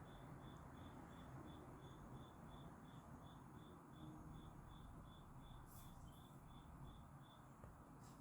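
Near silence, with a faint high chirp repeating evenly about three times a second that stops near the end, and a couple of light clicks.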